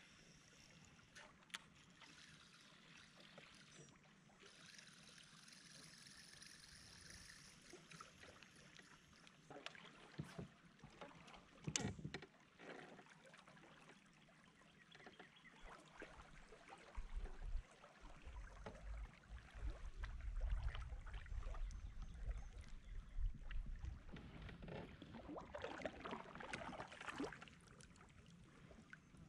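Quiet sounds of a kayak on the water: scattered small knocks and water sounds, with one louder knock about twelve seconds in. From about seventeen seconds in, wind rumbles on the microphone.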